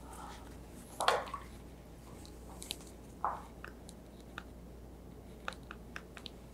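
Small wet squishes and light clicks of a watercolor brush being loaded off to the side, worked in water and paint: two louder squishes, about a second in and just after three seconds, with scattered faint ticks between and after.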